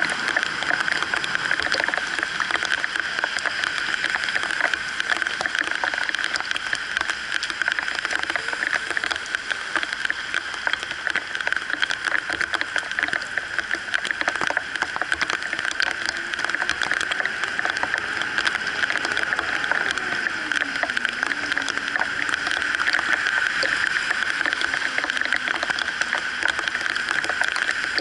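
Heavy rain pouring onto a flooded road, a steady dense patter of drops, with traffic passing through the water. A faint engine note wavers up and down partway through.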